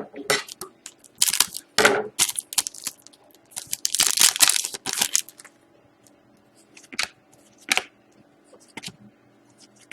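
Foil trading-card pack wrappers crinkling and tearing in repeated rustling bursts for about five seconds, then a few light clicks and taps.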